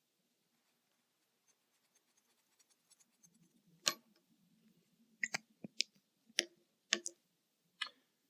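Near silence, then a scattered series of about eight small, sharp clicks and taps in the second half, from a bolt and small hand tools being handled and set down.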